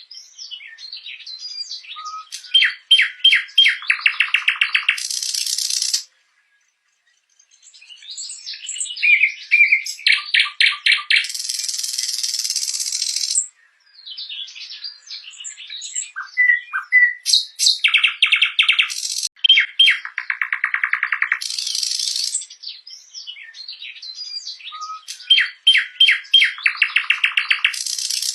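Nightingale singing: phrases of rapid repeated notes, short whistles and buzzy trills, broken by a pause of over a second about six seconds in.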